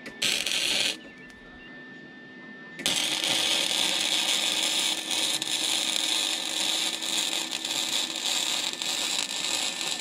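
Electric arc welding on metal: a short crackling tack burst, then, about three seconds in, a continuous crackling, hissing arc as the first weld bead is laid on a bash-bar mount.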